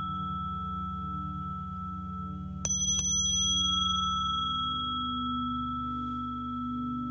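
Tibetan singing bowls humming low with a slow wobble, over a steady higher ringing tone. About two and a half seconds in, a small bright chime is struck twice in quick succession, and its high ringing fades out over a second or so.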